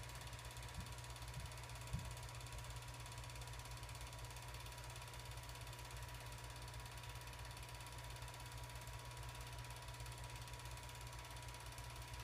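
8mm film projector running, its mechanism clattering rapidly and evenly with a steady low hum and a thin steady whine. There is a small click about two seconds in.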